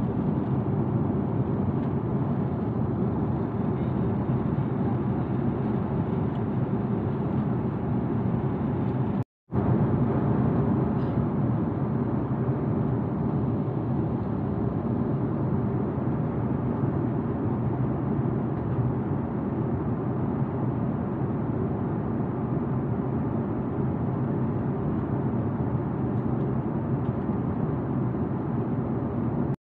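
Steady low rush of airliner cabin noise in flight: engine and airflow noise heard from inside the cabin, broken once by a split second of silence about nine seconds in.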